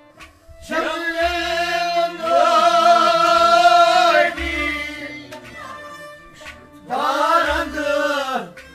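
A man sings a Kashmiri Sufi song with harmonium accompaniment: two long sung phrases with wavering ornaments, one starting about a second in and one near the end, over the harmonium's steady held notes.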